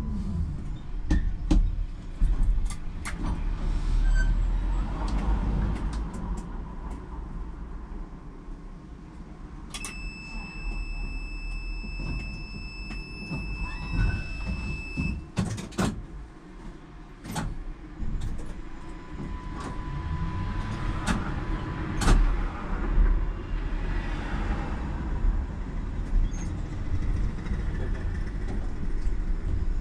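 Tram running and rumbling, with scattered sharp clicks and knocks; a steady high tone sounds for about five seconds in the middle, while the running noise is at its quietest.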